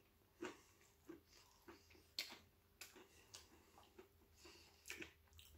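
A person chewing a mouthful of burger: faint, irregular wet clicks and smacks from the mouth, a dozen or so, with one sharper click about two seconds in.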